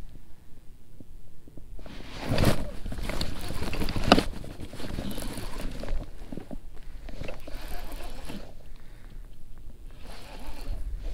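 Rustling and handling noise as the angler's hands and jacket move against the rod, reel and chest-mounted microphone, with one sharp click about four seconds in, over a low rumble.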